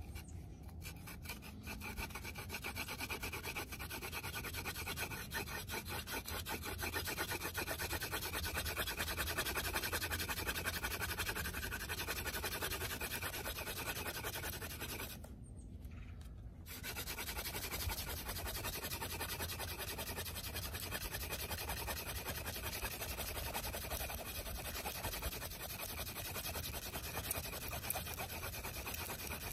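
Hand drill spindle, a velvetleaf host spindle in a thistle-stem coupler, spun rapidly back and forth by hand so that its tip grinds against the wooden hearth board: a steady, fast rubbing and rasping of wood on wood as it works up heat and char dust toward an ember. The spinning breaks off for about a second and a half some fifteen seconds in, then carries on.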